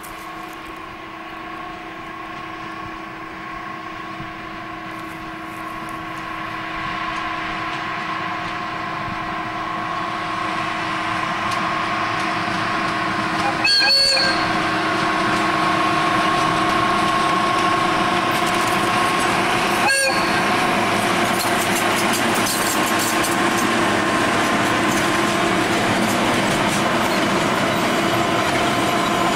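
Diesel locomotive hauling a freight train: a steady engine drone that grows louder over the first half as the train approaches, then holds level as the locomotive and wagons pass. Two brief sharp sounds stand out about six seconds apart, near the middle.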